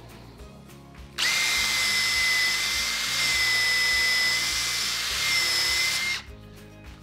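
Makita cordless drill running at full speed with a steady high whine for about five seconds, boring a pilot hole into the edge of a plywood board. It starts about a second in and stops abruptly.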